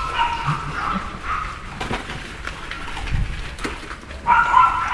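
Puppies whining in high-pitched cries, loudest at the start and again near the end.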